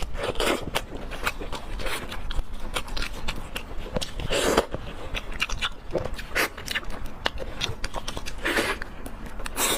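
Close-miked eating sounds: wet chewing and biting with many small smacking clicks, and a few louder slurping or crunching bites, of pork leg curry and rice.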